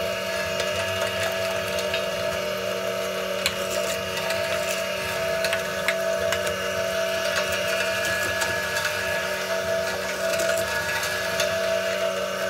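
Electric meat grinder's motor running steadily while vegetables are pushed down its feed tube and ground, with a few sharp clicks from the food going through the auger.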